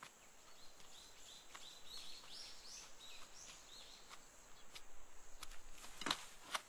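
Faint forest ambience with a bird singing a quick run of short chirps that step upward in pitch, starting about a second in and lasting a couple of seconds. A couple of sharp taps come near the end.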